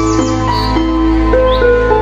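Background music: a slow, soft melody of held notes that move to a new pitch every half second or so, over a steady low drone.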